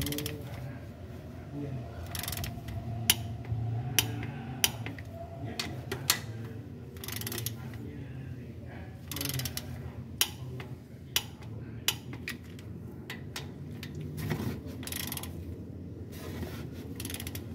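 Ratchet wrench on a long socket extension clicking in short runs, with sharp metallic clicks, as the bolts of a new balancer shaft assembly are turned under a Toyota 2AR-FE engine.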